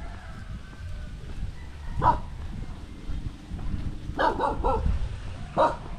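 A dog barking in short single barks: one about two seconds in, a quick run of three or four around four seconds in, and one more near the end, over a low rumble.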